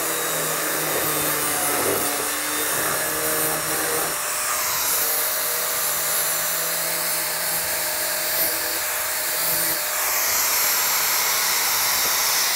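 Angle grinder with a thin cut-off disc running at full speed and cutting vinyl siding: a steady high whine over gritty cutting noise. The tone shifts a couple of times as the disc bites in and eases off.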